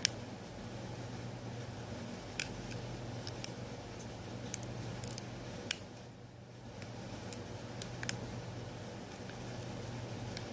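Scattered light clicks and taps of small repair tools and phone parts while connectors inside an iPhone 6 are being reconnected, about a dozen irregular clicks over a steady low hum.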